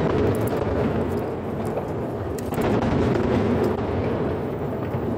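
Distant aerial fireworks bursting, heard as a continuous rumble of blended booms. It swells at the start and again about two and a half seconds in.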